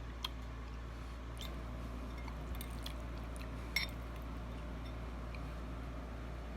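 Someone eating: faint chewing with scattered small mouth clicks, the sharpest a little under four seconds in, over a steady low hum.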